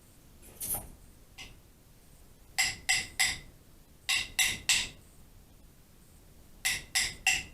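Rhythm sticks, a pair of wooden sticks, struck together in quick groups of three clicks, each click ringing briefly. There are three such groups about a second and a half apart, after a couple of faint taps near the start.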